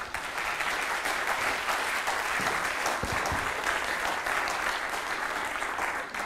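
An auditorium audience applauding with sustained clapping, which dies away at the very end.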